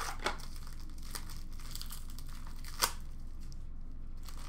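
A sealed hockey card box and the wrapped pack inside being torn open by hand: crinkling and tearing of the wrapper, with two sharp snaps, one just after the start and one near three seconds in.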